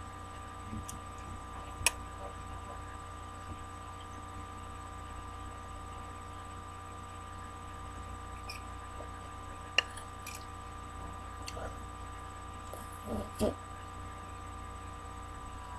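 Steady electrical hum with several thin whining tones held above it. A fork clicks sharply against a bowl twice, about two seconds in and again near ten seconds.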